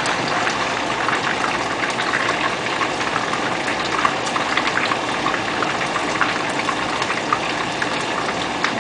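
Tilapia deep-frying in hot oil: a steady sizzle with many small pops and crackles.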